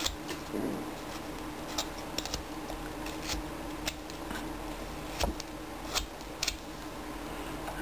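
Carving knife slicing chips off a small wood block by hand: irregular short, crisp clicks and snaps as each cut pops a chip free, about eight over several seconds.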